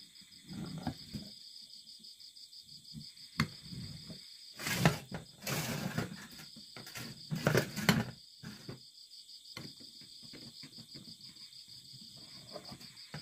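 Insects chirping steadily in a fast, even pulse, with scattered knocks and rustling handling noises that are loudest about halfway through.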